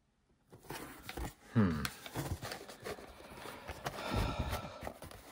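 A plastic Betamax cassette being slid out of a cardboard box and handled, starting about half a second in: cardboard and plastic rustling with light knocks. A brief low vocal murmur comes about one and a half seconds in.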